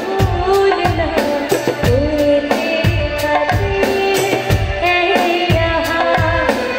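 Girl singing a Hindi film song into a microphone over a PA, with music accompaniment and a steady beat of about two drum thumps a second.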